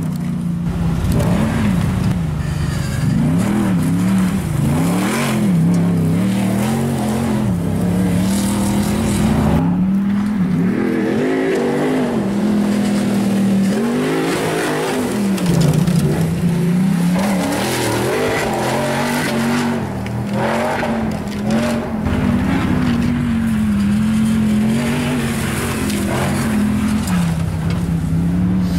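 Ford Raptor pickup's V8 engine revving hard, its pitch repeatedly rising and falling as the truck slides on gravel, over a hiss of tyres on loose gravel.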